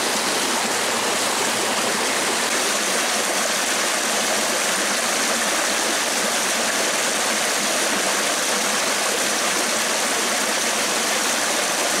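Small rocky mountain stream running over a low ledge and riffle: a steady, even rush of water.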